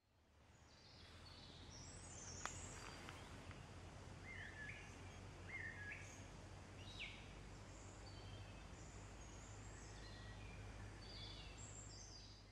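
Faint outdoor ambience with small birds chirping now and then over a low steady hum, fading in over the first couple of seconds. A single sharp click comes about two and a half seconds in.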